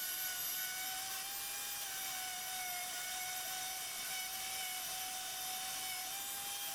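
Electric sander running on wood trim: a steady motor whine that wavers slightly in pitch, over a faint hiss.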